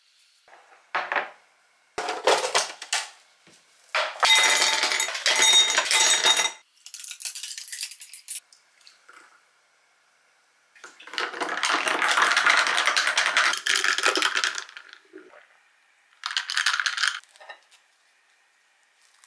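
Ice cubes dropping and clinking into a glass tumbler in several bursts, some with a ringing glassy tone. Later comes a longer spell of about four seconds that fits liquid being poured over the ice for an iced latte, then a short clink near the end.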